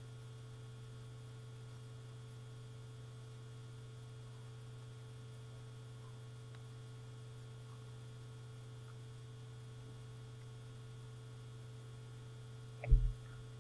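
Steady low electrical hum picked up by a laptop's built-in microphone, with a short thump near the end.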